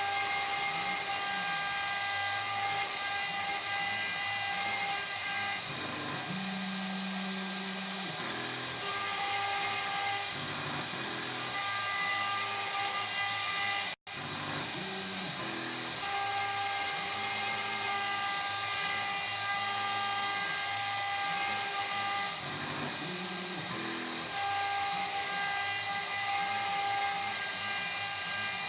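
CNC router spindle running with a steady high whine while the bit engraves acrylic sheet, the high cutting hiss coming and going every few seconds as the bit moves in and out of the cut. The sound cuts out for an instant about halfway through.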